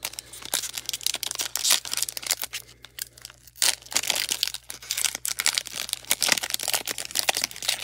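Foil wrapper of a basketball trading-card pack being torn open and crinkled by hand, an irregular crackling and rustling.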